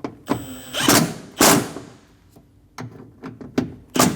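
Ratchet tightening the two bolts that hold a door lock actuator inside a car door: irregular clicking and short rasping strokes, with knocks of the tool against the door, the loudest about a second and a half in and just before the end.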